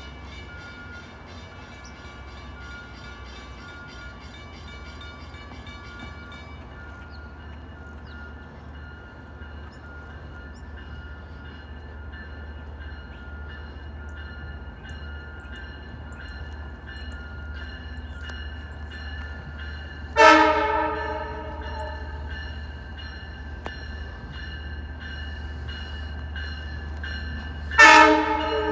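An approaching Long Island Rail Road commuter train sounds its horn: a short chord about twenty seconds in and another near the end. Under it a steady, evenly repeating ringing carries on throughout.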